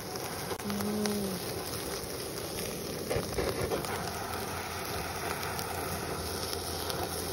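Handheld butane torch hissing steadily as its flame is played into the charcoal under a grill, with food sizzling and crackling on the grate.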